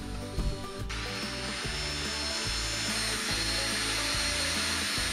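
Power drill with a small 7/64-inch bit running steadily, drilling a hole into the model railroad layout beside the track. It starts about a second in with an even whirring hiss, over quiet background music.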